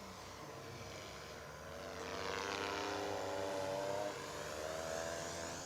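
Electric motor and propeller of an OMP Hobby 60-inch Edge 540 RC aerobatic plane in flight: a pitched whine that grows louder about two seconds in and drops back sharply at about four seconds.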